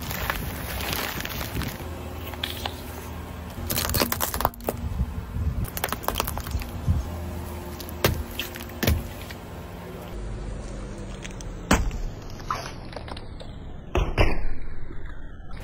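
Plastic snack packets crackling and popping under a car tyre: a series of sharp cracks and crunches, the loudest burst near the end as the tyre rolls onto plastic-wrapped jelly sticks. A low steady rumble from the car runs underneath.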